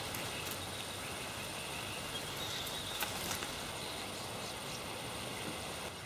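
Steady outdoor background of insects trilling in a high, even drone over a soft hiss, with a few faint clicks about three seconds in.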